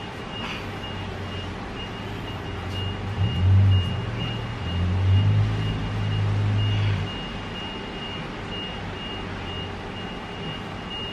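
Low rumble of road vehicle engines, swelling twice and fading, over a steady background hum and a thin high-pitched whine.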